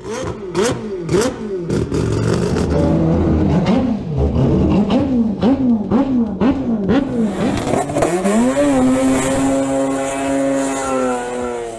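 Mazda rotary engines revving hard: quick blips that rise and fall over and over, with sharp exhaust cracks at the start, then a long climb to a high, held rev.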